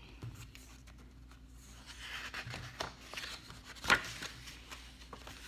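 Paper pages of a picture book rustling faintly as the book is handled and its pages turned, with a few light clicks and one sharper click about four seconds in.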